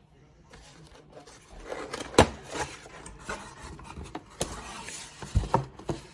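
Irregular scraping and rubbing as objects are handled and moved on a surface, with a few sharp knocks, the loudest about two seconds in and several more near the end.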